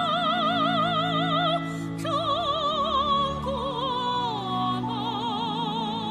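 A soprano sings a slow Chinese art-song phrase with wide vibrato over sustained orchestral accompaniment. She holds one long note, then after a short break sings a phrase that steps and glides downward.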